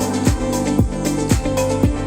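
Instrumental electronic pop music played through Wharfedale Denton 80th bookshelf speakers, with a steady kick drum about twice a second under held bass notes.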